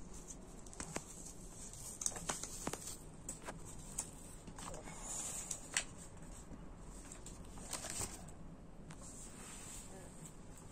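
Paper banknotes being handled and laid out on a table: quiet rustling of the notes with scattered light taps and clicks.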